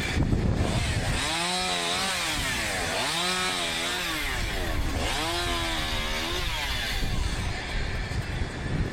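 Small two-stroke chainsaw engine revved up and back down three times, over a steady rough noise.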